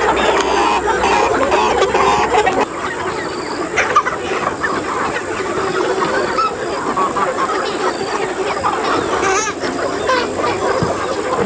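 A flock of chickens calling and clucking together in a dense, continuous chatter. A low hum underneath stops suddenly a couple of seconds in.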